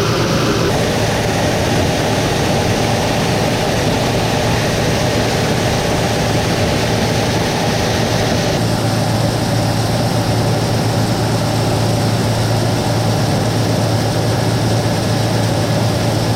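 Combine harvester running steadily under load, its engine hum and threshing machinery merging into a loud, even noise. The sound changes abruptly about a second in and again just past the middle.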